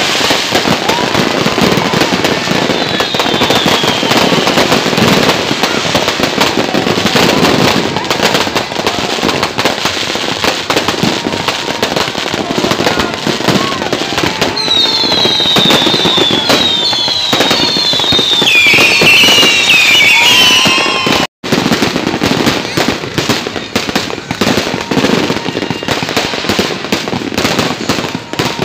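Fireworks display going off: a dense, continuous crackle of sparks and bangs, with several high whistles gliding down in pitch over the middle of the stretch. The sound drops out for an instant about three quarters of the way through.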